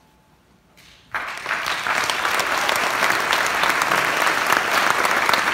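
Audience applauding. After about a second of hush the clapping breaks out suddenly and stays loud and steady: applause at the end of a performance.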